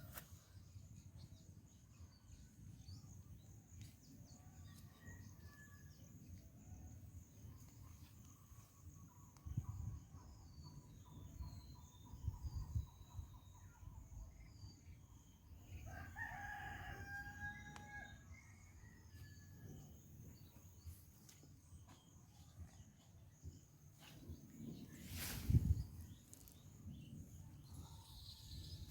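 A rooster crows once, a call of about two seconds just past the middle, over faint chirping of small birds and a low rumble. A single sharp thump comes near the end.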